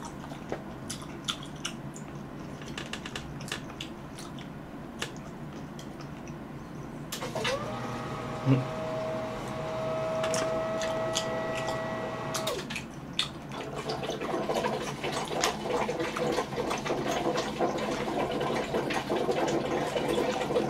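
Air conditioner cycling water. About seven seconds in, a hum rises in pitch and settles, holding steady for about five seconds. From about thirteen seconds in comes a dense gurgling, crackling water noise. Before the hum there are faint scattered clicks of cherries being chewed.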